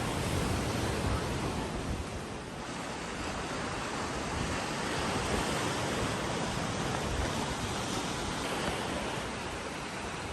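Steady rush of sea waves and wind, with gusty low rumbling.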